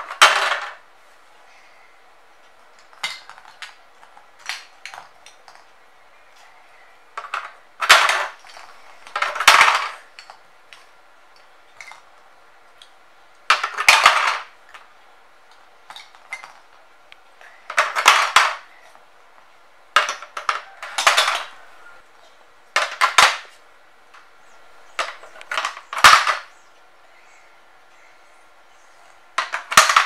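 Hard plastic shape blocks clattering as they are dropped one by one through the shape-sorter holes of a toddler activity cube and knock against the blocks already inside, with the loose pile rattling as they are picked up. There are about a dozen sharp clatters, a few seconds apart.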